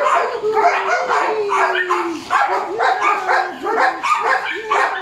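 Three-month-old Border Collie puppy barking and yipping over and over, about two or three a second, in excited play while tugging on a toy.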